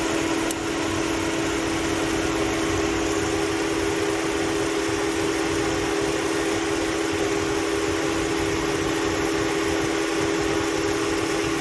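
Electric radiator cooling fans of a 2001 Saturn L-series running steadily with a constant whirring hum, over the idling engine; the fans running show the fan motors work.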